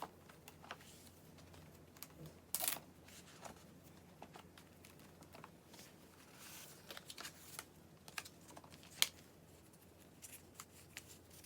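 Quiet handling noises: scattered taps, clicks and short rustles as merchandise items and their packaging are handled, with a sharper click about nine seconds in.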